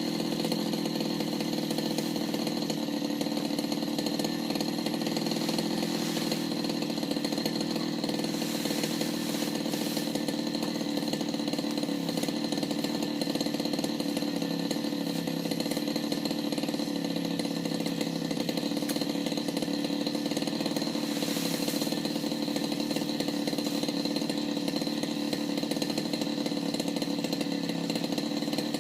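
Petrol brush cutter's small engine running at a steady speed while cutting patchouli plants.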